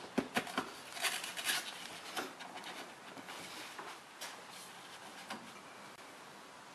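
Small clicks, taps and rubbing as gloved hands push the upper radiator hose onto the radiator neck and set its hose clamp; several close clicks in the first two seconds, then only a few fainter taps.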